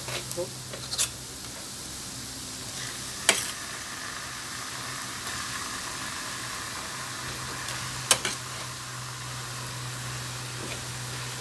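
Pieces of liver sizzling steadily as they fry in butter and oil with garlic and spices in a pan, with a few sharp clicks of a utensil against the pan.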